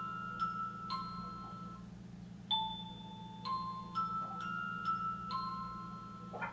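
Electronic chime of the box's motion-sensor alarm playing bell-like notes one after another at an uneven pace, each note ringing on, over a steady low hum.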